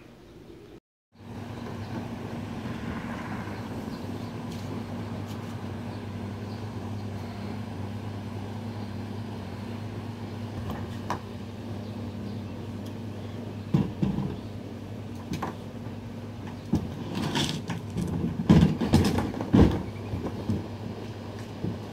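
A steady low mechanical hum, after a brief dropout at the start. Scattered knocks come in the second half, with a run of louder clunks near the end as objects are handled in a basement stairwell.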